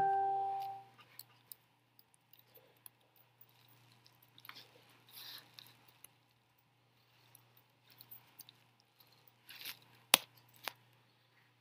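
A single electronic chime, like a doorbell ding, rings and fades over about a second. Faint rustling and small clicks follow over a low steady hum, with one sharp click about ten seconds in and a softer one just after.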